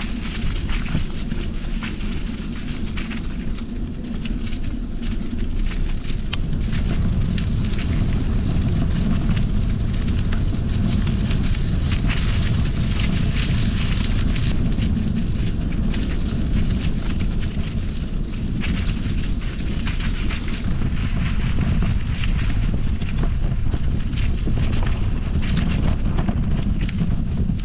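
Steady wind rumble on a moving bike-mounted microphone, over a dense crackle of 1990s mountain-bike tyres rolling on a gravel trail strewn with dry fallen leaves.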